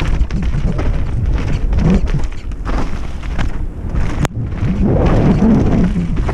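Wind buffeting the helmet-mounted camera's microphone, with the rumble and rattle of riding fast down a rough, wet dirt trail. One sharp click about two-thirds of the way through.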